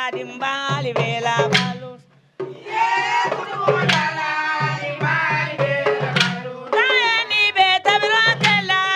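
Music with singing over hand-drum percussion, breaking off briefly about two seconds in and then resuming.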